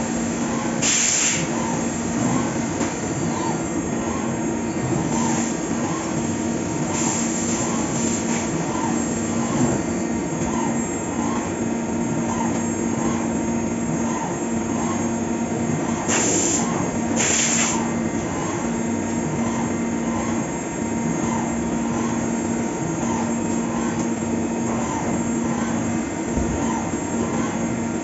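Fagima Jazz M 5-axis CNC milling machine cutting, a steady hum with a small chirp repeating a little faster than once a second. A few short bursts of hissing noise come near the start, in the middle and around two-thirds of the way through.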